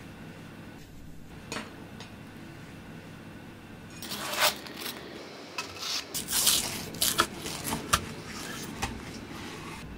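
A metal spatula scrapes across a non-stick grill pan as it slides under a toasted sandwich, starting about four seconds in. A kitchen knife then crunches through the crisp toasted bread, with a few sharp crackles near the end. Before that there is only a faint steady hum.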